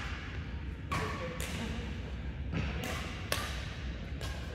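Badminton rally: rackets striking the shuttlecock about five times, a sharp smack roughly once a second, echoing in a large hall, with the hardest hit about three quarters of the way through.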